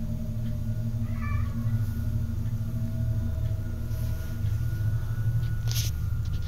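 An agitated house cat meowing, a short call about a second in, over a steady low hum, with a brief hissing noise near the end.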